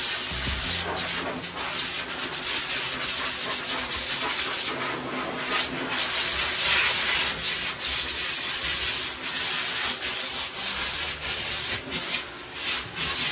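Steady hiss of water running from a hose sprayer into a stainless steel dog-bathing tub, with hands scrubbing shampoo lather through a wet dog's coat.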